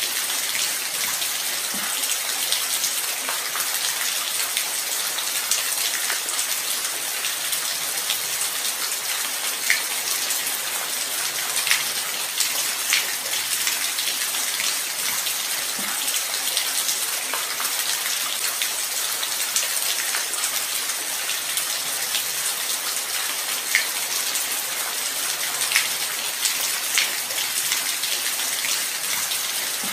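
Light rain falling steadily: an even high hiss with scattered sharper drop ticks.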